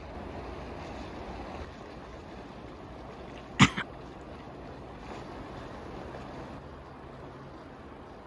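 Steady rush of an open river flowing between ice shelves, with one sudden loud, sharp sound and a smaller one right after it, near the middle.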